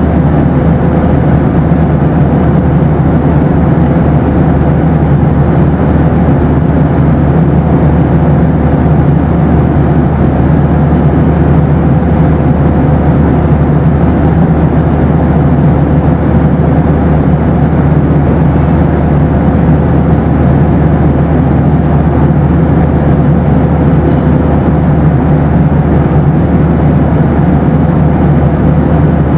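Steady cabin noise inside a Boeing 737 in flight: a constant, even rush of engine and airflow noise, heavy in the low end, with a thin steady tone running through it.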